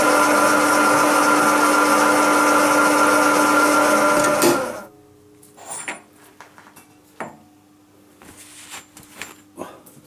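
Milling machine with a freshly sharpened end mill making a surfacing test cut in a metal block: a steady whirring cut with a held hum and chip noise, which stops abruptly about four and a half seconds in. After that come faint clicks and knocks as the workpiece is handled, over a low hum.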